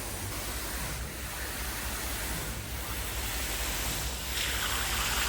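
Concrete pump running, with wet concrete rushing out of the hose as a steady noisy wash over a low rumble; the rush grows louder about four seconds in.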